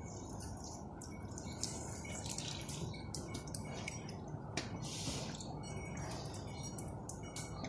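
Cattle drinking from a concrete water trough: wet slurping and dripping as their muzzles work in the water, with many small irregular clicks.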